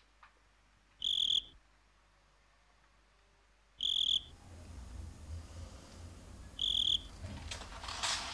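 A cricket chirping: three short, high chirps about three seconds apart. A low background rumble comes in partway through, and there is a soft rustle near the end.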